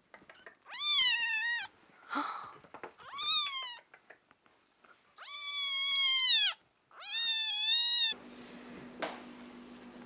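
A domestic cat meowing four times, each a long drawn-out meow that rises and then falls in pitch. For the last two seconds the sound drops to a quieter steady hum.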